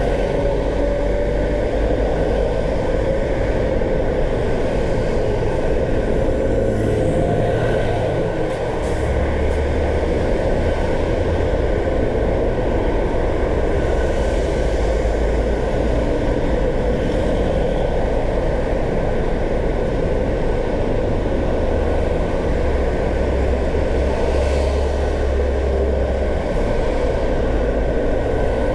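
Steady road noise of a car being driven: tyre and engine noise with a low rumble that swells at times.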